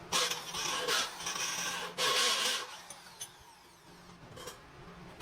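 Rasping, filing-like strokes of a hand tool on a workpiece: three loud scraping bursts in the first few seconds, then fainter rubbing.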